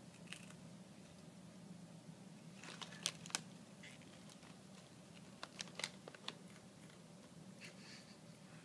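Prairie dog eating Cheetos with its head inside the crisp bag: faint crinkling of the foil bag with sharp crunches, bunched around three seconds in and again around five to six seconds in.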